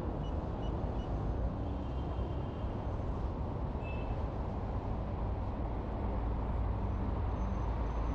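Steady road and traffic noise with a heavy low rumble of wind on the microphone. Three faint short high beeps come in the first second.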